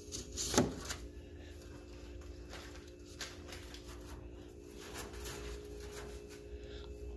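Faint rustling and light clicks over a steady low hum, with one louder knock about half a second in.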